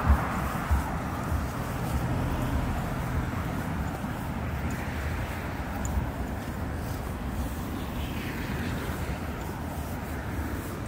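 City street traffic: vehicles passing, with a steady wash of road noise.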